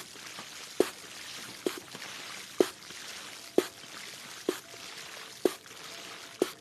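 Water dripping into water about once a second, each drop a sharp plink with a short ringing tone, over a steady trickling hiss of running water.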